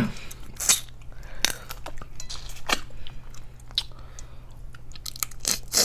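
Close-miked eating sounds from a seafood boil: chewing and mouth smacks, with a scattered series of sharp clicks and cracks, over a steady low hum.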